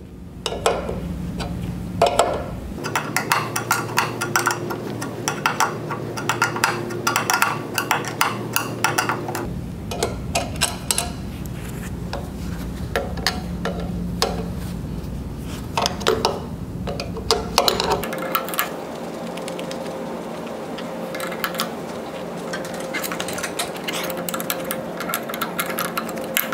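An 11/16 wrench clicking and clinking against the metal tube fitting on a hydraulic gear pump's outlet line as the fitting is worked loose: runs of light, quick metallic clicks broken by short pauses.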